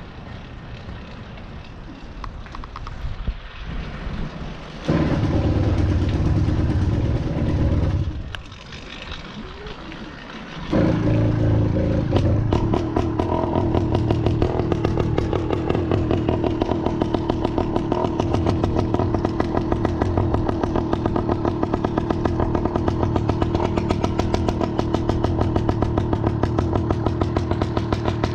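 Small two-stroke motorized-bicycle engine starting up. It runs loudly for about three seconds, falls away for a couple of seconds, then catches again about eleven seconds in and keeps running steadily with an even, rapid pulse.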